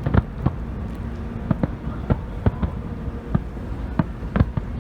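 Fireworks display: a rapid, irregular series of bangs, several a second, over a continuous low rumble.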